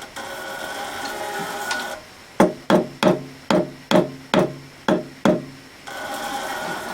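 Eight light taps, about two a second, on a Zamak flywheel casting screwed loosely to a lathe faceplate, each ringing briefly: knocking the casting into true alignment before the screws are tightened.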